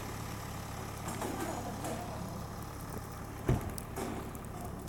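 Steady low hum of a vehicle engine idling, with a single dull thump about three and a half seconds in.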